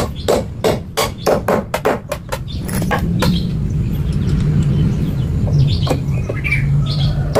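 Rapid sharp knocks, about four or five a second, for the first two seconds or so, giving way to a steady low hum like a running motor.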